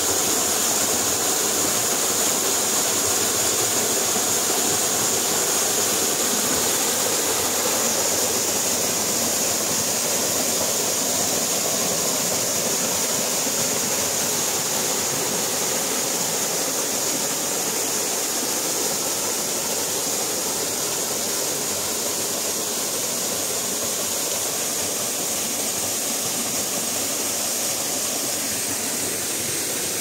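Small waterfall pouring into a rock pool: a steady rush of falling water, a little quieter toward the end.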